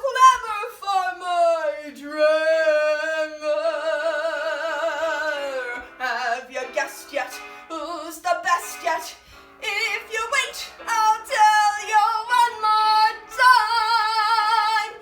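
A woman's voice singing a Broadway show tune, with a long held note sung with vibrato a couple of seconds in and another held, wavering note near the end.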